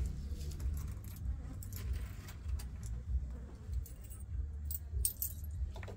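Low steady rumble with a few light clicks about five seconds in and again near the end, like small hard objects being handled.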